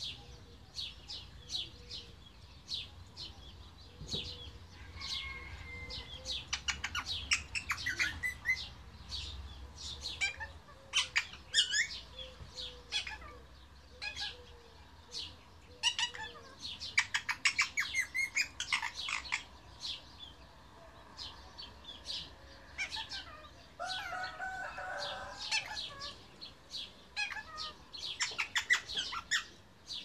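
Pet parrot chirping and chattering in many short, sharp chirps and quick trills, with a brief lower warbling call late on.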